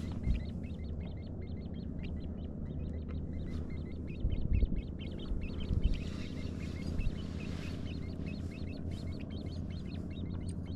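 Birds calling: rapid runs of short, repeated chirps, over a steady low hum. A few dull thumps come between about four and seven seconds in.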